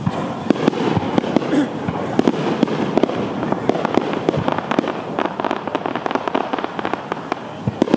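Aerial fireworks shells bursting overhead in quick succession: a dense run of sharp cracks and bangs.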